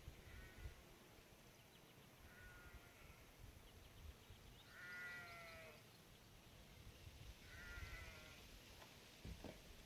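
Faint bleating of sheep: four short calls a couple of seconds apart, the longest and loudest in the middle.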